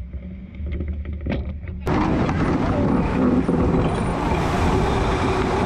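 Onboard sound of an RC44 racing yacht under way. At first there is a muffled low rumble with a few short knocks; about two seconds in it gives way to a louder, steady rush of wind on the microphone and water streaming past the hull.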